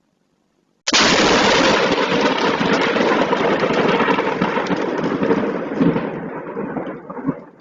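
A dense, rapid clatter of many sharp impacts that starts suddenly about a second in and fades out near the end.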